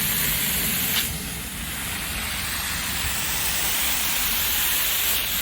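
Water rushing out of open hose bibs on a freshly charged PVC water line: a steady hiss, with a click about a second in.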